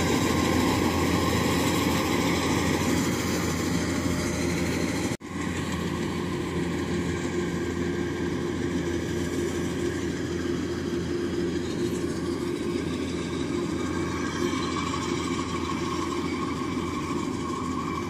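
Rice combine harvester engine running steadily as the machine cuts through the rice. About five seconds in the sound drops out for an instant, then the drone carries on a little quieter.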